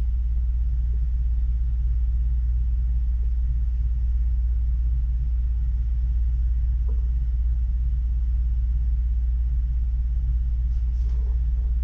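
Steady low rumble that holds an even level throughout.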